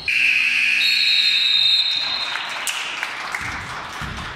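Basketball scoreboard buzzer sounding loud and shrill for about a second and a half, then spectators cheering and clapping, fading away.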